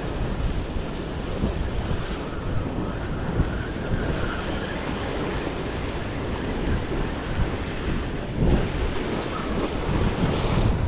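Wind blowing across the microphone, with sea surf washing against the shore.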